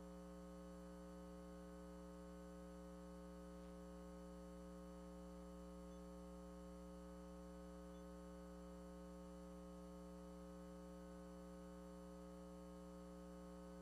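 Near silence: a faint, steady electrical hum made of several held tones over low hiss.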